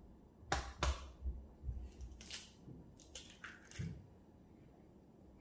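A raw egg being cracked: two sharp taps of the shell against a hard edge, then a run of smaller crackling and crunching as the shell is broken open, stopping about four seconds in.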